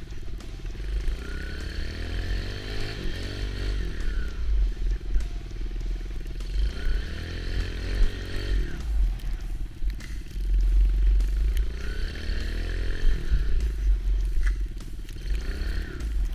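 Kawasaki KLX110 dirt bike's small four-stroke single-cylinder engine revving up and dropping back three times, over a steady low rumble.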